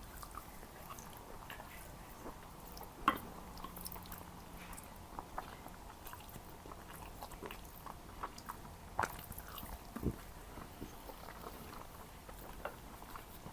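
Close-miked eating sounds: a person chewing and biting Jordanian mansaf (lamb and rice in yogurt sauce), with scattered small mouth clicks. The sharpest clicks come about 3 seconds in and again around 9 to 10 seconds in.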